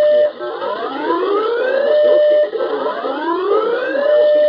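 A loud alarm siren whooping: its tone rises in pitch and holds briefly at the top, twice in a row, an alert sounding ahead of a severe weather warning.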